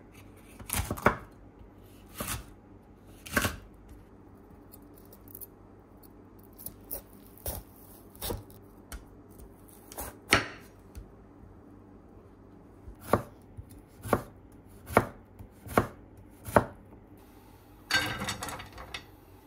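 Kitchen knife chopping green peppers and bitter melon on a wooden cutting board: single sharp strikes, spaced irregularly about a second or more apart. Near the end comes a short clatter of cut carrot sticks tipped into a frying pan.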